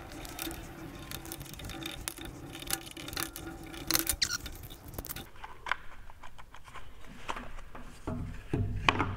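Small clicks, taps and scrapes of screws being backed out of an angle grinder's black plastic rear housing and set down on the bench, with the plastic housing knocking louder near the end as it is pulled off.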